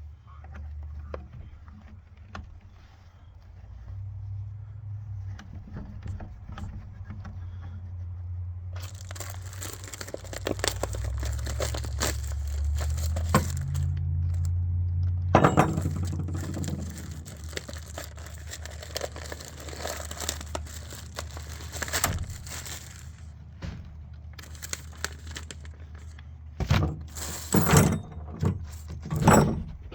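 Packaging being handled while a new miter saw is unboxed: crinkling plastic and cardboard, with scattered knocks and clinks. The crinkling is densest from about 9 to 16 seconds in, and a few sharper knocks come near the end.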